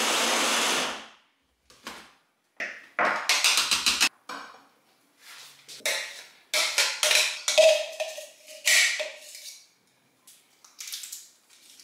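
Stick blender's chopper attachment running, then cutting off about a second in. It is followed by knocks and scrapes as the plastic chopper bowl is handled and a spoon scrapes the chopped paste out against it, one knock ringing briefly.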